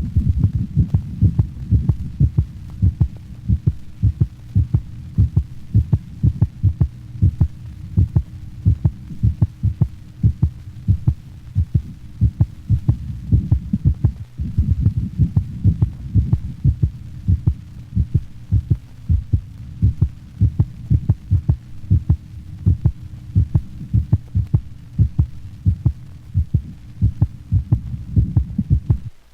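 Stethoscope recording of a normal dog's heartbeat, a regular lub-dub with a single, unsplit first heart sound. A faint steady hum runs underneath, and there is a brief break about halfway through.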